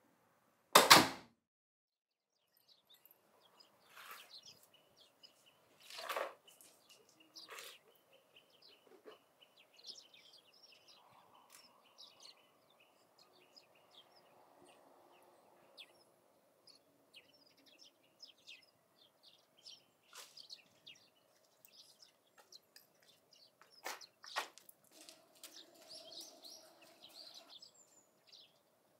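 A door bangs shut once about a second in. Then comes quiet garden ambience: small birds chirping here and there, with scattered light knocks and clatter from gardening work among plant pots.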